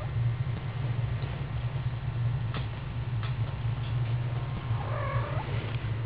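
A kitten gives one short mew about five seconds in, over a steady low rumble, while an adult cat grooms and wrestles it.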